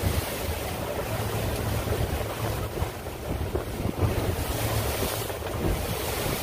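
Wind buffeting the microphone over a steady low rumble and rushing water as a fishing boat runs at speed on its twin outboard motors.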